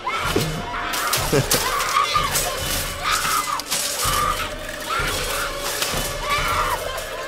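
Horror-film sound effects: a metal shopping cart repeatedly smashing against a car, with glass shattering, and a woman's screams recurring between the crashes.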